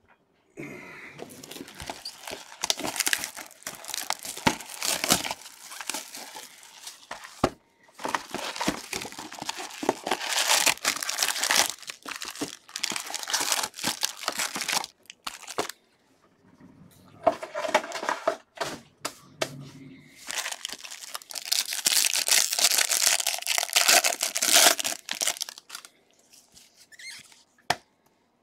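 Bowman baseball card packs being ripped open, their wrappers tearing and crinkling in four long bouts with short pauses between.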